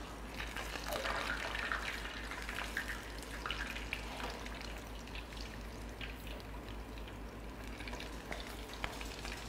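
Flour-battered pig's trotters deep-frying in a saucepan of hot oil: a steady sizzle with scattered small crackles, the oil not spitting.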